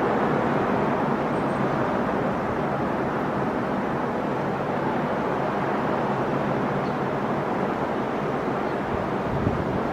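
Sea waves breaking and washing on the shore in a continuous, steady surf, with a brief low thump near the end.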